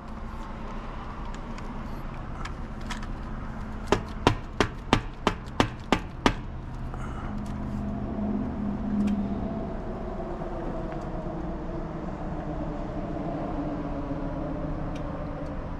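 Knocking on a door: about eight quick, even knocks, roughly three a second, a few seconds in.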